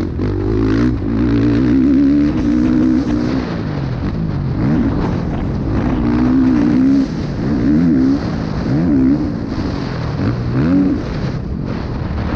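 Motocross dirt bike engine revving hard and easing off through a lap of a dirt track, its pitch rising and falling again and again as the throttle is opened and closed and the rider shifts.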